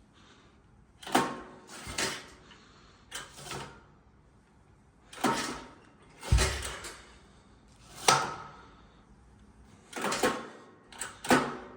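Freshly rebuilt recoil starter on a 1981 Honda 185S being pulled again and again, the rope whirring out and winding back about nine times, a second or two apart.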